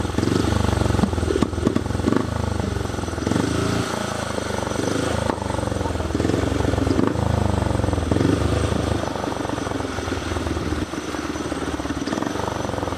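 Speedway motorcycle's single-cylinder engine running, its note rising and falling as the bike is ridden around the shale track.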